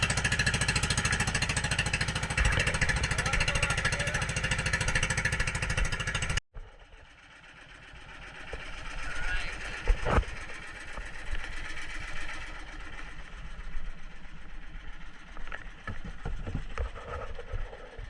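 Fishing boat's engine running loud and steady with a rapid even chug, cutting off abruptly about six seconds in. After it, quieter scattered knocks and clatter, with one sharp knock about ten seconds in.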